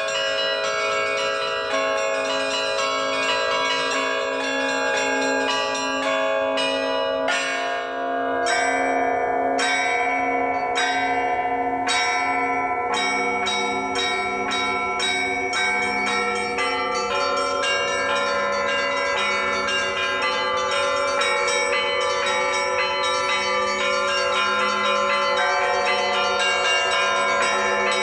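A set of Russian Orthodox church bells cast by the LITEKS foundry rung in a traditional peal: many bells of different sizes struck in repeated patterns, their tones ringing on and overlapping. The pattern of strikes changes about eight seconds in.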